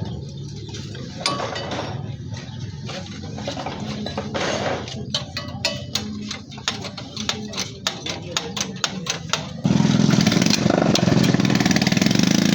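Honda CD70 single-cylinder engine running steadily, with a series of sharp clicks and ticks over it. About ten seconds in, the sound cuts suddenly to a much louder run of the engine.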